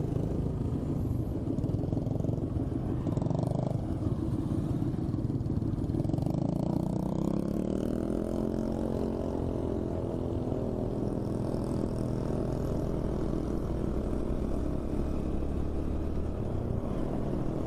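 Motorcycle running on the road under a steady low rumble of wind and road noise; about six seconds in the engine note climbs as the bike accelerates, then holds steady.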